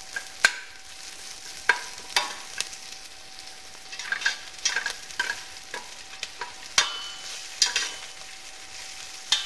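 Sliced onions sizzling as they brown in a stainless steel pot, stirred with a spatula that scrapes and knocks sharply against the pot about a dozen times.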